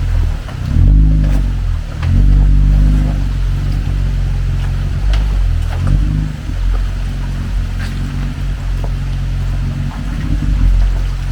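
Off-road 4x4's engine running under load and revving up in several surges, the strongest about a second in and again around two to three seconds, with a few light knocks.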